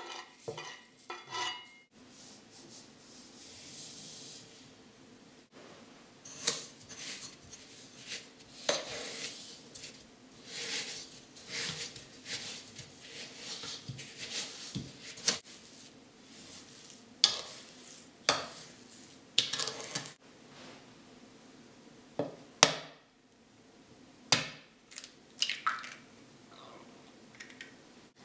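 A plastic spatula creams butter and sugar in a plastic mixing bowl, with repeated scraping and squishing strokes. Near the start there is a soft hiss of sugar sliding off a wooden board into the bowl, and there are a couple of sharp knocks near the end.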